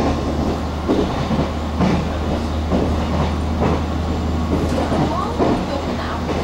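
Taiwan Railways EMU700 electric multiple unit running, heard from inside the car: a steady low hum with irregular knocks of the wheels over the rails, and a brief rising tone about five seconds in.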